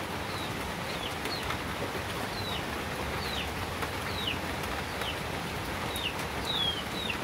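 A bird chirping: a string of short, falling chirps repeated every half second or so, over a steady background hiss.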